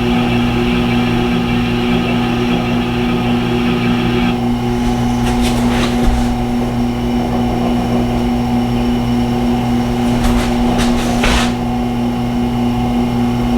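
Tormek T-8 sharpening machine's motor running with a steady hum, with a higher hiss of steel on the wheel that stops about four seconds in. Brief swishes of the blade come twice, around five seconds and again around ten to eleven seconds in.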